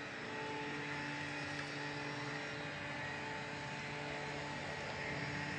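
Steady machine hum at an even level, with several held tones over a constant noise bed.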